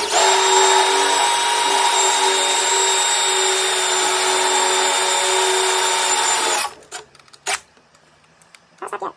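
Power drill with a carbide bit running steadily with a whine for about six and a half seconds, drilling out a snapped-off screw, then stopping abruptly. A few clicks and knocks follow.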